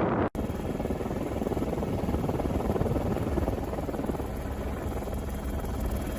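Steady engine and rotor noise of an aircraft filming from the air, after a brief cut-out of sound about a third of a second in.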